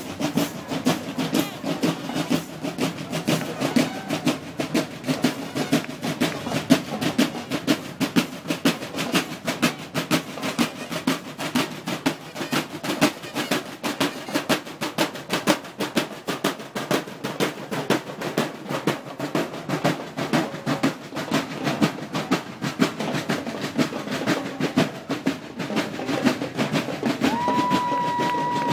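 Marching band snare drums playing a fast, steady cadence of rolls and strokes. Near the end a single high note is held for about a second.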